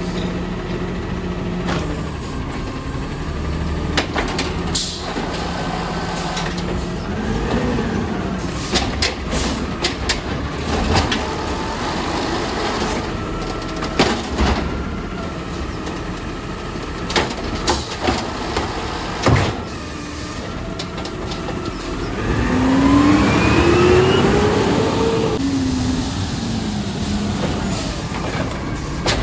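Automated side-loader garbage truck running at the curb while its hydraulic arm grabs and lifts a trash cart, with scattered metallic clanks and knocks from the arm and cart. About two-thirds of the way through, a loud rising whine as the engine revs to drive the lift.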